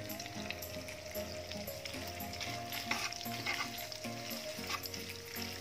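Oil sizzling as sliced smoked beef (sei sapi) is stir-fried in a wok, with a metal spatula scraping and clicking against the pan now and then.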